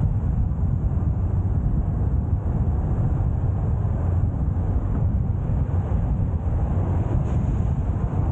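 A car driving: a steady low rumble of engine and road noise with some wind noise, unchanging throughout.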